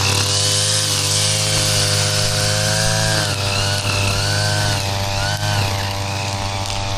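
Two-stroke gas grass trimmer running continuously, its engine pitch wavering up and down as it cuts from about three seconds in.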